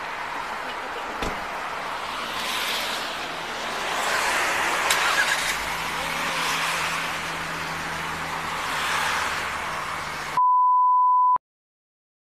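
Cars passing on the road, the noise swelling as each goes by. Near the end, a steady beep tone lasts about a second, and then the sound cuts out completely.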